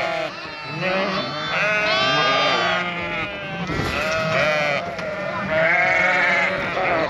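A flock of ewes and lambs bleating, many calls overlapping, the higher lamb bleats over lower ewe calls.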